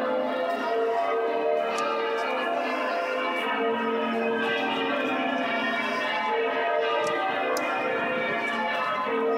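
The church bells of York Minster rung in changes: a continuous peal of many bells striking one after another, their tones overlapping without a break.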